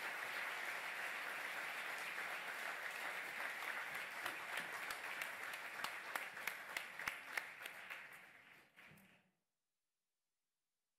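Audience applauding, thinning to a few separate claps near the end and dying out about nine seconds in.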